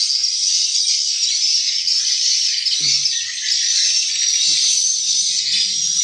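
Swiftlet lure calls played through tweeter speakers inside a swiftlet house: a dense, continuous, high-pitched chirping, loud and busy.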